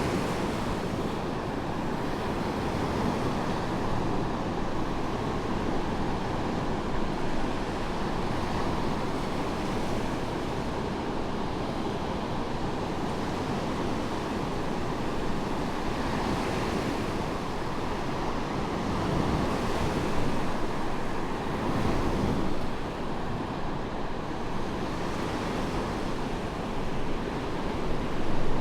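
Medium surf breaking and washing up on a sandy beach: a continuous rush of water with louder breaks swelling up now and then, one near the end.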